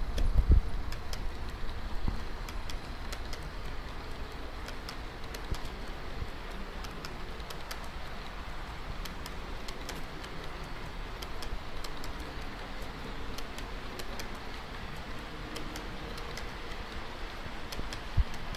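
Model train running across a layout's viaduct: a steady low rumble with light, irregular clicks as the wheels pass over the rail joints. A few low thumps right at the start, and one sharp knock near the end.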